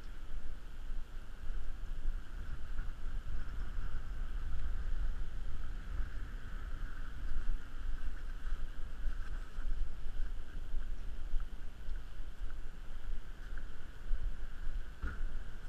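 Wind buffeting the GoPro's microphone in an uneven low rumble as the wearer walks, with a steady high hum underneath.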